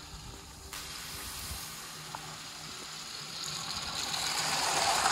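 LEGO 60337 Express Passenger Train running along plastic track: a steady low motor hum with a rushing rattle of wheels on the track that grows louder near the end as the train comes close.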